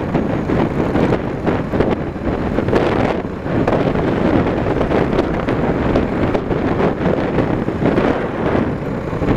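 Wind rushing over the microphone while riding a motorcycle at speed, with the bike's engine and road noise underneath as a steady rumble.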